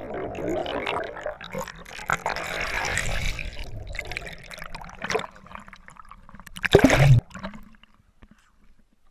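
Muffled underwater gurgling and bubbling of churned river water around a submerged camera just after a plunge. A brief loud splash a little before the end marks the camera breaking the surface, after which it goes quiet.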